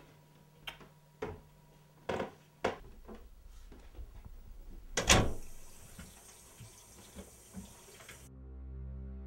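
A few soft knocks and clicks, then a loud knock about five seconds in followed by a steady hiss that cuts off suddenly. Background music begins near the end.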